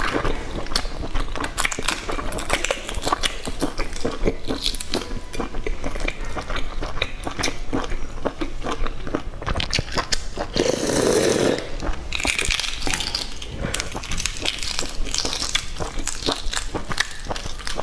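Eggshell crackling and snapping as it is peeled off eggs by hand, a dense run of small sharp clicks, with a brief louder sound about eleven seconds in.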